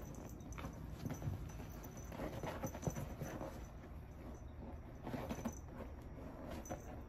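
A kitten's paws patting, scrabbling and scuffing on a leather armchair as it plays with a string toy: a run of soft, irregular taps and scrapes.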